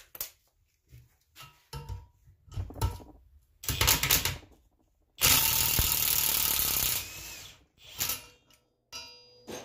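Cordless impact wrench hammering for about two seconds, about five seconds in, driving a three-jaw puller's screw to pull the timing sprocket off a small-block Chevy crankshaft. Short metal clinks and knocks from the steel puller being handled come before and after.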